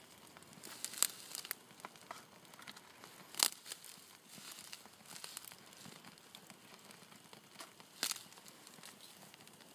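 Christmas tree branches and cardboard burning in an open fire, crackling with scattered sharp pops. The loudest pops come about one, three and a half, and eight seconds in.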